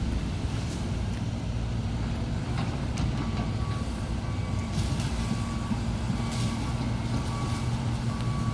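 Diesel engine of heavy demolition machinery running steadily, with a reversing alarm beeping repeatedly from about three seconds in and a few sharp clanks of debris or metal.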